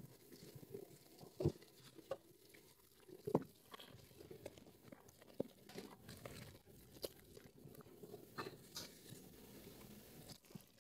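Soaked, mushy Nuvo Red soap squeezed and kneaded by hand in thick lather: irregular wet squelches and crackling foam, with two louder squishes about one and a half and three and a half seconds in.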